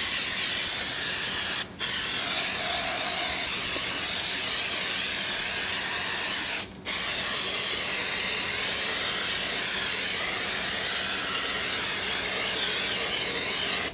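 Aerosol can of Fluid Film rust inhibitor spraying onto the underside of a mower deck: a steady hiss that stops briefly twice as the nozzle is let go and pressed again.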